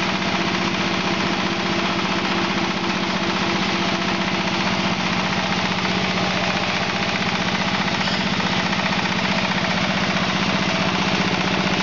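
Single-cylinder diesel engine driving a hammer mill that is grinding wood chips, both running steadily. The engine's fast, even beat and low hum sit under a dense rushing noise from the mill and its blower.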